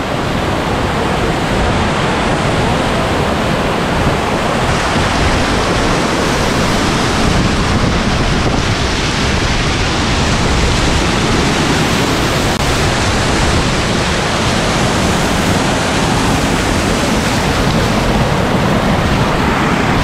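Waterfall rushing and splashing right at the camera, a steady, even noise with no break, muffled because water has got into the GoPro's microphone.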